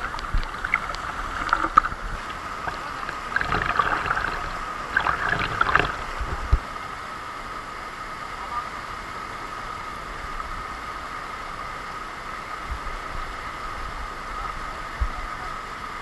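Steady rush of waterfall water, an even hiss throughout. Irregular knocks and splashes fill the first six seconds, then the sound settles to the even rush.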